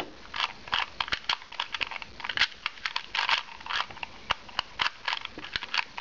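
A 2x2 Rubik's cube being scrambled by hand: its plastic layers turn rapidly, giving a quick, irregular run of clicks and clacks.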